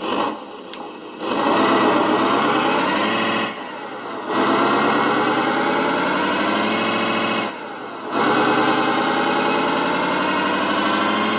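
Simulated engine sound from an ESP32 RC sound controller played through a small speaker, revving with the transmitter throttle. The pitch climbs through long stretches, broken by two short drops in level about four and eight seconds in.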